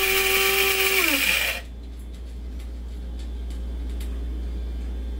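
KRUPS electric blade coffee grinder running with its lid held down, whirring as it grinds. About a second in, it is released and the motor winds down in falling pitch, stopping abruptly. A low steady hum and a few faint clicks follow.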